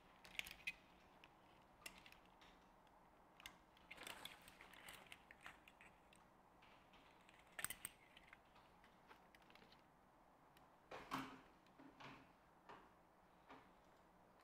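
Faint, scattered clicks and rustles from beach shorts on plastic clip hangers being handled: fabric rustling and hanger clips clicking, with a slightly louder rustle about three-quarters of the way through.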